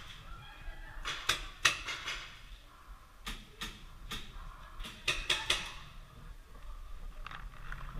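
Paintball markers firing: about a dozen sharp pops, some single and some in quick runs of three or four, echoing in a hard-walled space.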